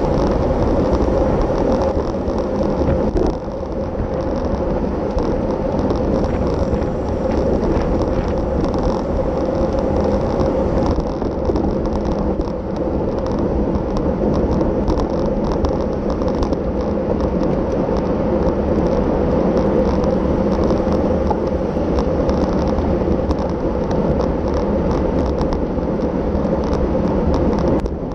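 Steady rush of wind over the microphone of a camera riding on a road bicycle at race speed, with tyre and road noise underneath and faint scattered ticks.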